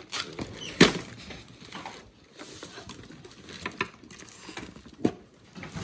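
Handling noise as a large toy truck is worked out of its cardboard box: packing rustling and scattered light knocks, with a sharp knock about a second in and another near the end.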